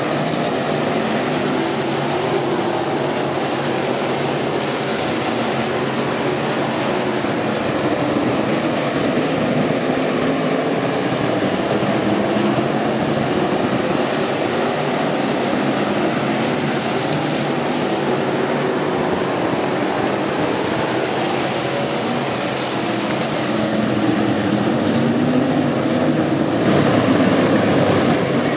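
A pack of dirt-track stock cars racing, their engines running hard in a continuous din that swells louder near the end as cars come past.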